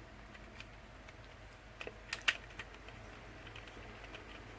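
A few light clicks and taps of KJW MK1 airsoft pistol parts being handled and fitted together during reassembly, the sharpest about halfway through.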